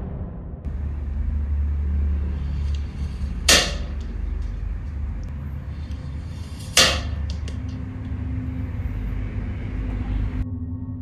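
Firecrackers going off inside bananas: two sharp bangs about three seconds apart, over a low steady rumble.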